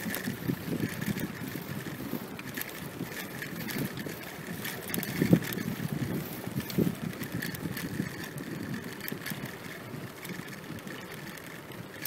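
Movement along a wooden boardwalk: a steady low rumble with irregular knocks on the planks, one louder knock about five seconds in.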